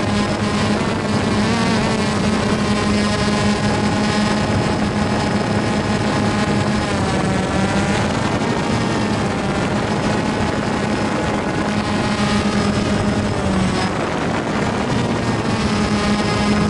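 Small multirotor drone's motors and propellers buzzing steadily, close and loud, with the pitch dipping and rising again about seven to nine seconds in.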